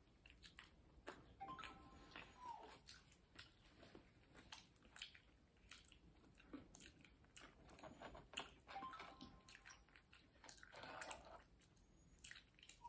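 Quiet chewing and biting of food, with many small clicks scattered through.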